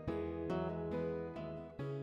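Background music: gentle acoustic guitar, plucked chords changing about every half second.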